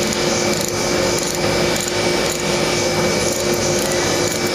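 Tap being turned by hand with a tap driver, cutting threads into a magnesium VW engine case with a scraping, rubbing sound. Under it runs a steady machine hum with a constant tone.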